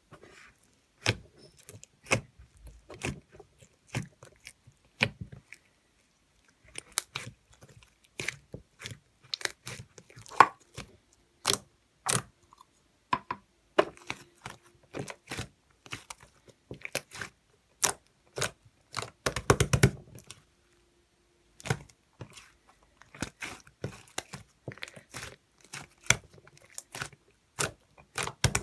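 Handmade slime being squished and poked by hand, making irregular sharp clicks and crackles, with a quick dense run of clicks about two-thirds of the way through.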